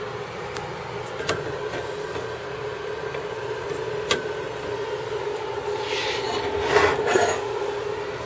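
Handling noise: a few light clicks, then a rubbing, scraping stretch about six to seven seconds in, over a steady background hum.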